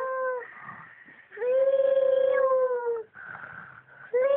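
Two children snoring in step: long, pitched snores about every three seconds, each holding a steady tone and sagging in pitch as it ends, with a softer breathy sound between them.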